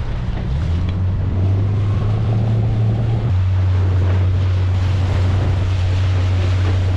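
Small boat's outboard motor running under way with a steady low drone, over the rush of water along the hull and wind buffeting the microphone. The engine note drops slightly a little past three seconds in.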